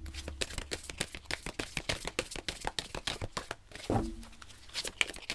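A deck of oracle cards being shuffled by hand: a quick run of cards flicking against each other, with a soft thump about four seconds in.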